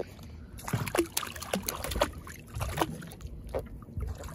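Irregular splashing and slapping of water as a large hooked pufferfish thrashes at the sea surface beside the boat.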